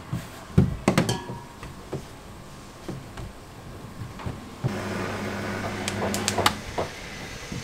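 Sharp knocks and clatter of a rolling pin and dough handled on a steel counter, then, a little past halfway, an electric dough sheeter's motor running with a steady hum for about two seconds while a dough sheet feeds through its rollers.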